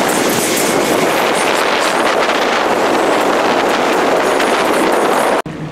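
Loud, steady rush of wind buffeting the microphone on a motorboat running at speed, mixed with the boat's engine and water noise. It drops away abruptly near the end.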